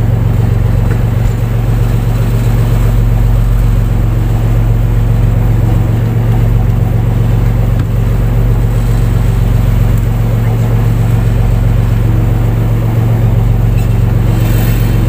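A fishing boat's engine running steadily at constant speed, a low, even drone.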